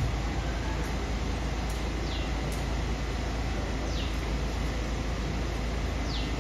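Steady low rumble and hum of background noise, with a faint high falling chirp repeated about every two seconds.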